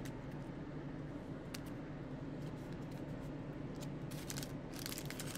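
Baseball trading cards and a card pack's wrapper being handled: soft scattered clicks and rustles, growing denser near the end, over a steady low hum.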